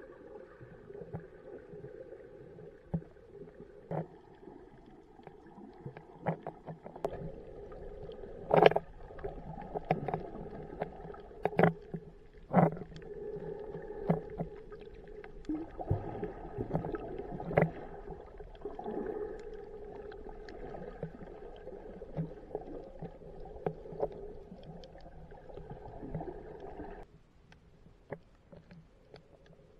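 Muffled underwater sound picked up through a waterproof action-camera housing: a steady hum with scattered sharp clicks and knocks. The hum cuts off suddenly near the end.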